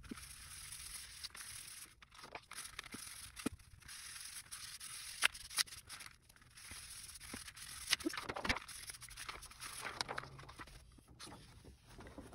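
A sponge rubbing mineral oil over a sheet of copy paper: soft swishing strokes in stretches with short pauses, and a few light taps and ticks of paper and hand on the table.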